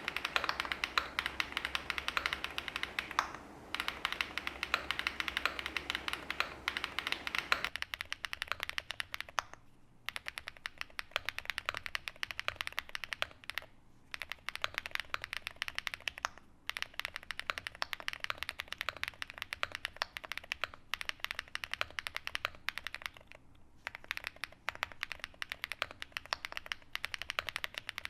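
Fast continuous typing on a custom mechanical keyboard with SW x Haimu MP tactile switches (POM housings, UPE stem with metal pole tip), an FR4 plate, leaf-spring mount and DMK rubber keycaps: a dense run of key clacks with a few brief pauses. About eight seconds in, the sound changes from the camera microphone's recording, with a low hum under it, to a cleaner one without the hum.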